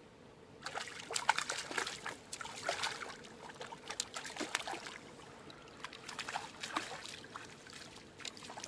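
Hooked fish splashing and thrashing at the water's surface as a landing net is worked under it: a fast, irregular run of sharp splashes starting just under a second in and going on in spurts.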